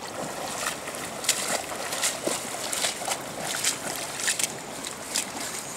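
Irregular splashing in shallow creek water as a hooked catfish thrashes at the surface while it is reeled in, mixed with steps of rubber boots through the shallows.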